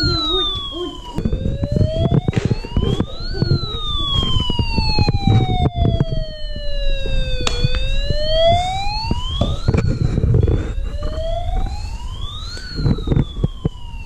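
Toy megaphone's electronic siren wailing, its pitch rising and falling slowly over several seconds at a time and restarting about a second in. Knocks and thumps from handling sound underneath it.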